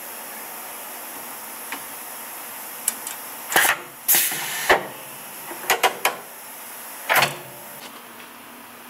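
Foodtools food-cutting machine running a cut on an ice cream dome: a steady machine hiss with a few clicks, then several short, loud hisses and clacks between about three and a half and seven seconds in.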